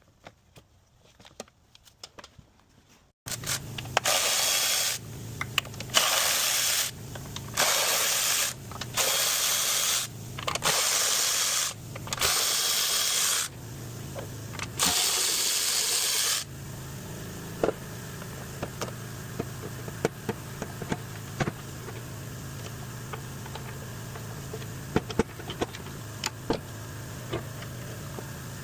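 A power tool run in about seven short bursts, each half a second to a second and a half long, over a steady low hum. After the bursts stop, the hum goes on with scattered light clicks and taps.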